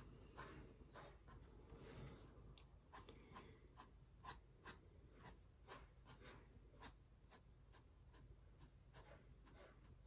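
Fine-line ink pen drawing on watercolour paper: faint scratching and tapping of the nib in many short, quick, irregular strokes.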